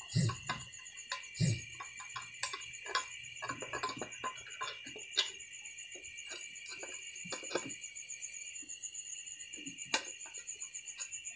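Small clicks and knocks of a screwdriver and hard plastic parts being handled while screws are taken out of a motorcycle headlight reflector and LED board. Under them runs a steady high-pitched trill.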